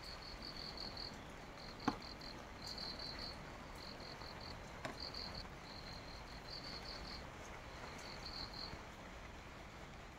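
An insect chirping faintly and high-pitched, in short groups of rapid pulses that repeat about once a second. A single sharp click about two seconds in, and a softer one near five seconds.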